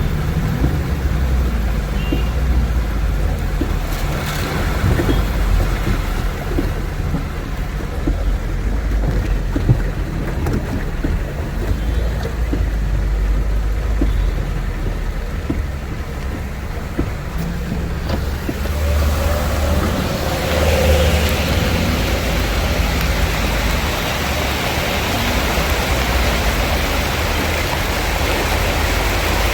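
Road traffic moving through a flooded street: a steady low engine rumble. About two-thirds of the way in, a louder hiss of rain and splashing water joins it.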